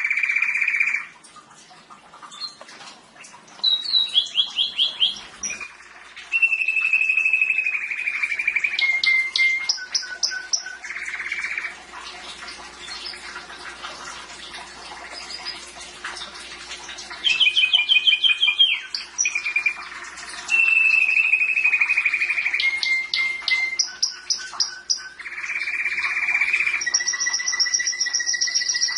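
Domestic canary singing a long, varied song of rapid trills and rolls: fast strings of repeated notes at several pitches, with a quieter stretch about halfway through.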